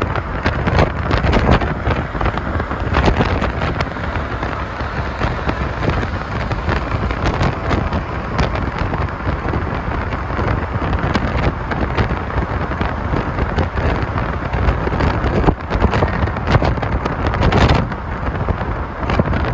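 Wind buffeting the microphone over a steady rumble of road and vehicle noise; no chime melody stands out.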